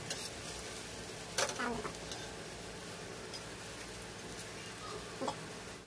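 Omelette frying on a flat griddle pan with a steady faint sizzle, and a few short clinks and scrapes of a metal spatula against the pan, the loudest about a second and a half in.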